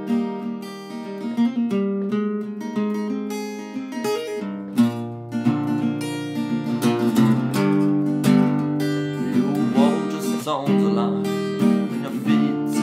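Acoustic guitar strumming chords in an instrumental break between verses of a folk-rock song.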